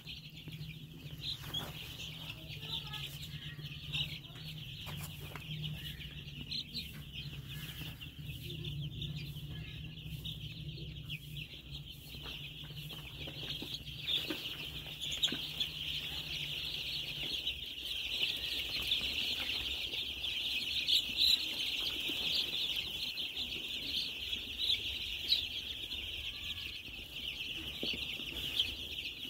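A large brood of baby chicks peeping nonstop, a dense chorus of high, overlapping cheeps that grows louder about two-thirds of the way in.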